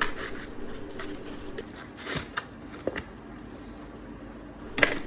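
Cardboard box and plastic packaging being handled as a flash drive's package is pulled out of its box: scattered clicks and scrapes, the loudest near the end.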